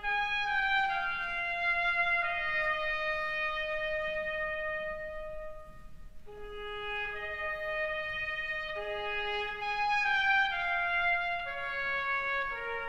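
Intro music: a slow melody of long held notes played one at a time, with a short break about six seconds in.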